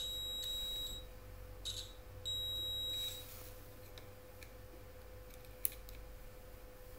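Multimeter continuity beeper giving two steady high-pitched beeps, the first lasting about a second and the second just under a second, as the probes are held across fuses on a TV inverter board. A continuity beep shows the fuse conducts, i.e. it is not blown.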